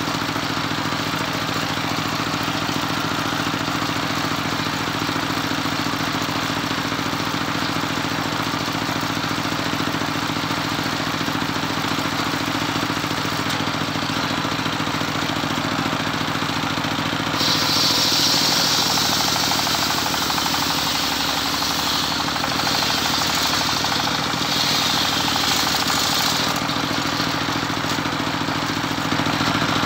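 A homemade circular sawmill's engine running steadily. About halfway through, the saw blade bites into a teak log and a high rasping cutting noise sounds for about nine seconds, with a brief dip partway, before the engine runs on alone.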